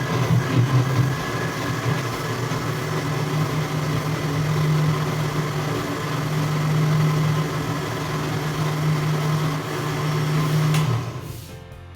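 Electric kitchen blender running steadily as it chops plant leaves, with its motor humming. The blender cuts off about eleven seconds in.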